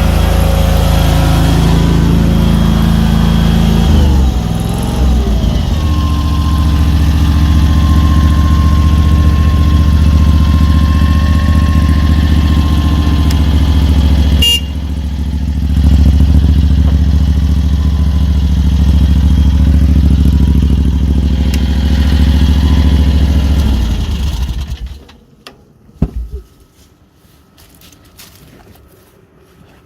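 Mini skid steer's V-twin gasoline engine running steadily at working speed, with a brief shift in pitch about four seconds in and a single sharp click about halfway through. The engine sound stops about five seconds before the end.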